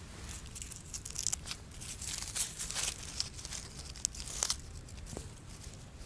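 Close, irregular dry rustling and crackling, of dry leaves and grass being disturbed, with a faint low rumble underneath.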